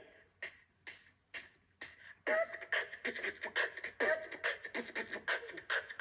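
A young woman beatboxing (Japanese 'boipa', voice percussion) with her hands cupped over her mouth. A few sparse hits open it, then a quicker steady beat of about three to four hits a second sets in about two seconds in.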